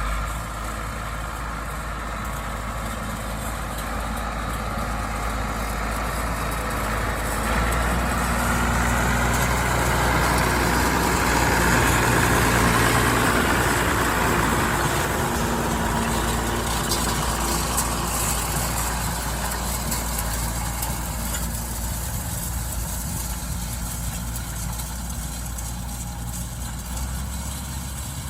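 Allis-Chalmers 7020 tractor's diesel engine running steadily, growing louder to a peak about halfway through and then easing off.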